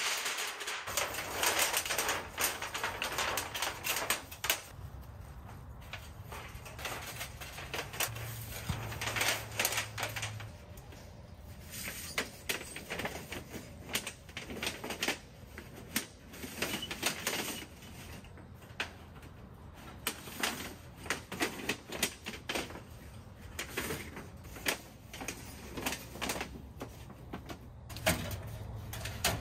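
A thin rolled titanium stovepipe sheet being unfurled, formed into a pipe and handled around a small titanium wood stove: a long run of irregular crinkles, clicks and light metallic rattles.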